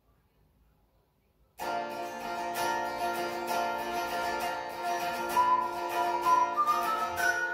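Near silence, then about one and a half seconds in a hollow-body electric guitar starts playing: chords, with single notes stepping upward in pitch in the second half.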